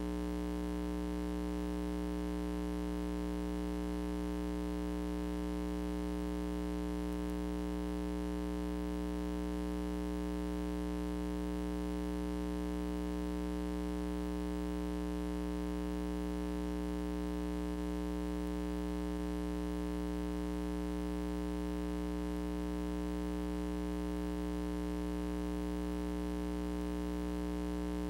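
Steady electrical mains hum: a low buzz made of many evenly spaced overtones, with no change in pitch or level.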